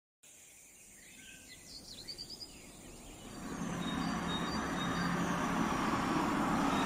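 Outdoor ambience fading in out of silence as a track's intro: a few bird chirps, then a steady wash of noise with a low hum that swells from about three seconds in.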